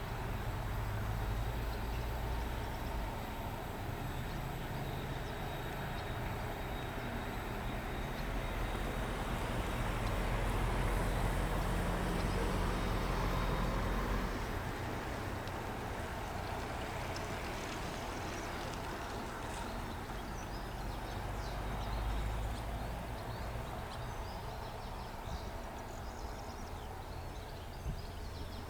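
SU42 diesel locomotive engine running as the passenger train pulls out, a low rumble that grows loudest about halfway through, drops away after about fourteen seconds, and fades into birdsong by the end.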